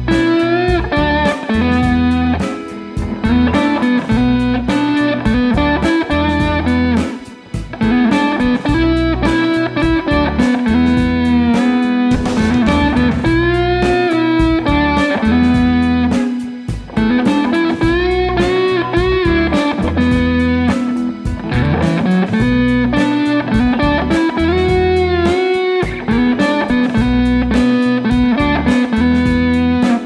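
A 1993 Fender Stratocaster American Standard electric guitar played through its neck pickup, picking bluesy single-note lead lines with frequent bent notes that rise and fall in pitch.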